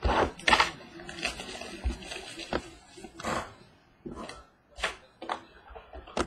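Hands unpacking and handling cardboard trading-card boxes: plastic wrapping crinkling, with a series of irregular knocks as the boxes are handled and set down on the table.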